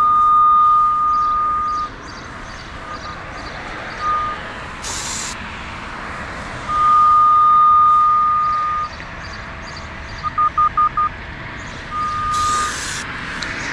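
Radiodetection RD8200 cable and pipe locator receiver sounding its locate tone over the buried line: a single-pitch beep that holds for about two seconds at a time, breaks off, gives a few short blips, and near the end a quick run of about five short pips. Two brief bursts of hiss come in, about five seconds in and near the end.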